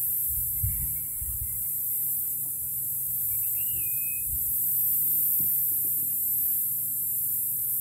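Steady high-pitched hiss over a low hum, with a brief warbling chirp about three and a half seconds in.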